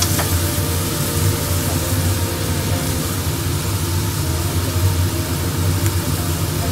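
Shrimp and green vegetable pieces simmering in a wok with a soft hiss, over a steady low machine hum.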